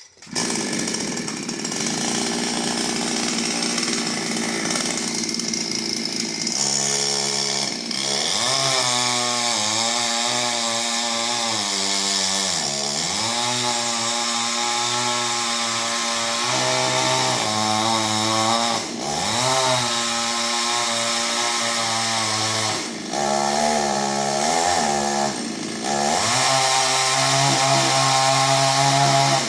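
Chainsaw running hard while cutting into a coconut palm trunk. It comes in suddenly at the start, and its engine pitch dips and climbs again several times as the chain bites and frees in the cut.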